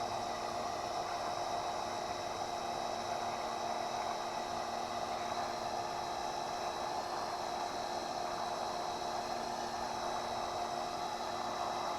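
Electric pressure washer running steadily, driving a sewer jetter hose: a constant motor-and-pump hum with an even hiss of water.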